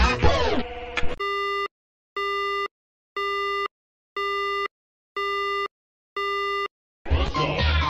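A telephone busy signal: six even half-second tones, one each second, with silence between. Before it, a snatch of music slides down in pitch, and music starts again near the end.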